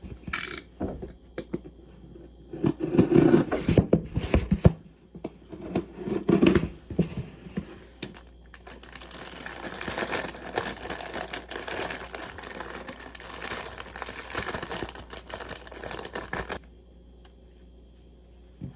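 Crinkling and rustling of material being handled, with clattery bursts in the first seconds and then a long, steady spell of crackly rustling that stops suddenly near the end.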